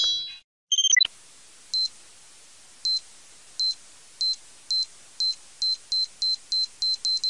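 Time-bomb countdown sound effect: short, high electronic beeps that begin about two seconds in and come faster and faster. A brief two-note electronic chirp sounds just before them, about a second in.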